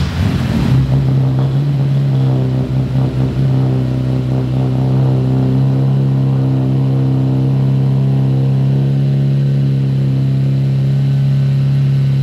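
Lamborghini Murciélago's V12 engine just after starting, running a little unevenly for the first few seconds and then settling into a steady idle.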